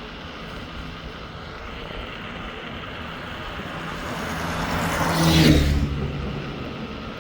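A motor vehicle passes close by on the highway, swelling to a peak about five and a half seconds in and fading quickly, its tone dropping as it goes past. Underneath runs steady wind and road noise from riding at speed.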